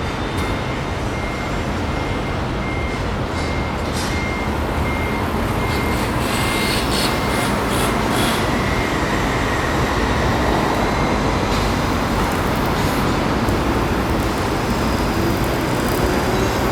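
Steady city traffic and rail noise, with a faint repeating beep early on and a slowly rising whine in the last few seconds as a vehicle pulls away.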